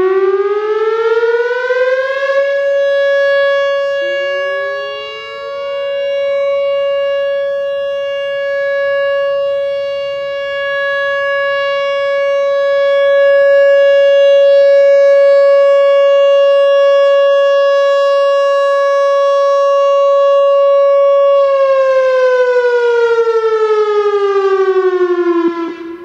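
Whelen WPS-3000 electronic outdoor warning siren sounding its steady Alert tone. The tone rises in pitch at the start, holds one pitch for about twenty seconds, its loudness dipping and swelling as the rotating speaker array turns, then falls in pitch and stops just before the end.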